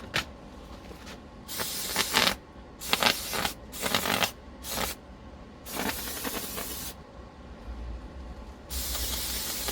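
Aerosol degreaser sprayed in a run of short hissing bursts onto the bike's rear cassette and derailleur, with a longer continuous spray starting near the end.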